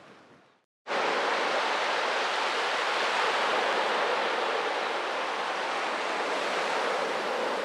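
Steady rush of surf washing up the beach, an even hiss that starts suddenly about a second in after a moment of silence.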